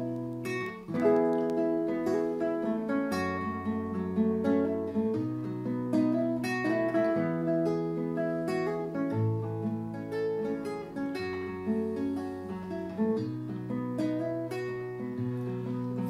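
Nylon-string acoustic guitar playing the instrumental introduction to a folk song: chords picked note by note over a moving bass line, at an even tempo.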